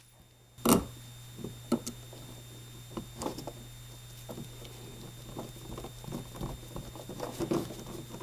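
Screwdriver driving small screws into the metal flange of a boat fuel-tank sending unit: irregular small clicks and scrapes of metal, with a sharp click about half a second in. A steady low hum runs underneath.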